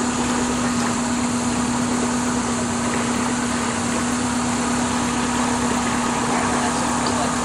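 Tour boat's motor running steadily under way, an even hum that holds one pitch throughout.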